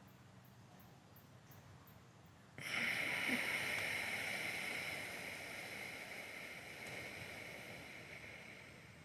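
A long ujjayi breath exhaled slowly through one nostril, the throat narrowed so that it hisses. It starts suddenly about two and a half seconds in and fades away over about six seconds.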